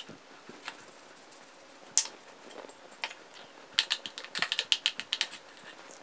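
Light clicks and taps from hands working battered bread fingers against ceramic plates and a bowl while the strips are dipped in batter and coated in breadcrumbs. There is a single sharp click about two seconds in, and then a quick run of clicks a little before the four-second mark.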